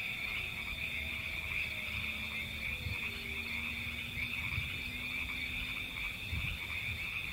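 A steady chorus of frogs trilling at a pond at night. Faint lower tones run underneath, one of them sliding down in pitch a few seconds in.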